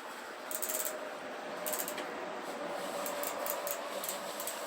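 Dirty bicycle chain run backwards through a paper towel, with a steady rustle of paper. The rear hub ratchet ticks in quick runs each time the cranks are turned back.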